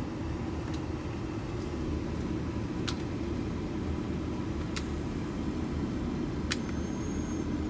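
Heater/AC blower fan of a 2001 Chevrolet Express running steadily inside the van, with several light clicks as the control is switched through its settings.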